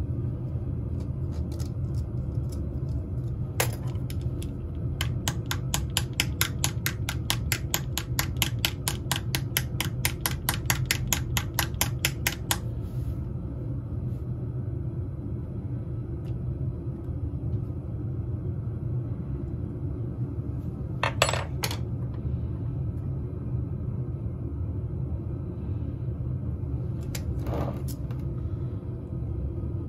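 Light, rapid clicking of a utility-knife blade and pick scraping at a casting mould, about six clicks a second for several seconds, with two short scrapes later on. A steady low rumble sits underneath.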